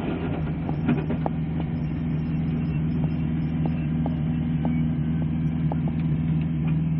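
Subaru Impreza WRC's turbocharged flat-four engine idling steadily, heard from inside the cabin, with a few light, irregular ticks over it.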